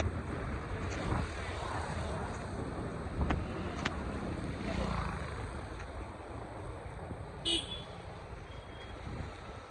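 City street traffic: vehicles passing with a steady rumble that slowly fades, a couple of sharp clicks in the middle, and a short horn toot about seven and a half seconds in.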